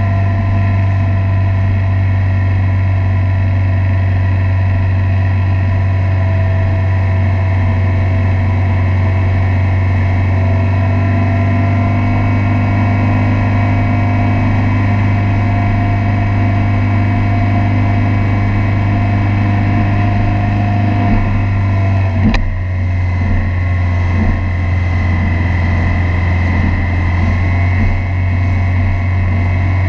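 Motorboat engine running steadily at speed while towing a tube, a constant low drone, with one sharp knock about two-thirds of the way through.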